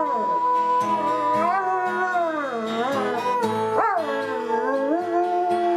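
A dog howling in long, wavering notes that rise and fall, over music with a steady beat.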